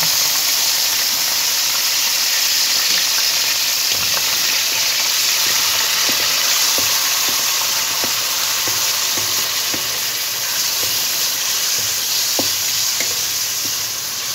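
Small cubes of boneless chicken sizzling steadily in hot oil in a karahi. From a few seconds in, a wooden spatula scrapes and taps against the pan with many small clicks as the pieces are stirred.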